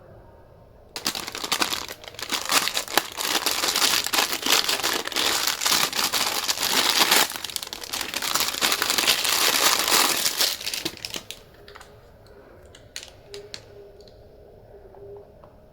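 Loud crinkling and rustling begins about a second in and goes on for roughly ten seconds. It then stops, and a few scattered clicks follow.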